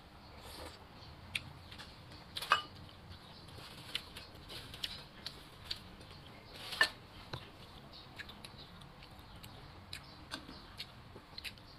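Close mouth sounds of a person eating soup and rice: chewing with many small wet clicks and smacks, two sharper clicks standing out, one about two and a half seconds in and one near the seventh second.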